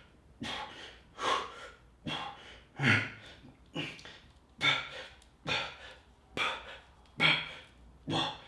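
A man breathing hard with exertion during a set of workout reps, a forceful breath about every second in a steady rhythm.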